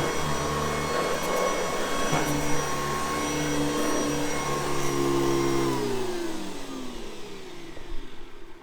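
Vintage Hoover Convertible U4387 vacuum cleaner running steadily, then switched off a little over halfway through; the motor's hum falls in pitch as it spins down and fades away.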